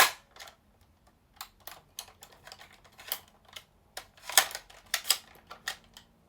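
Irregular clicks and taps of hard plastic from a Buzz Lightyear action figure being handled and its parts worked, with a sharp click right at the start and another loud one about four and a half seconds in.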